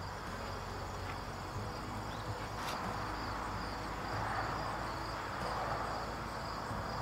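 Crickets chirping in a steady high, evenly pulsing trill. A soft rushing noise swells in from about three seconds in.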